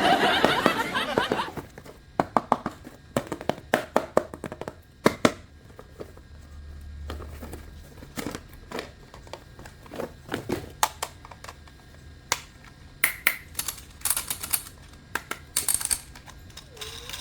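Scattered clicks and taps of plastic toys and packaging being handled, about a dozen sharp ticks spread unevenly, with a short noisy rush at the start.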